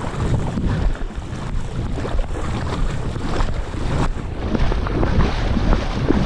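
Wind buffeting the microphone in gusts, over the wash and splash of shallow seawater.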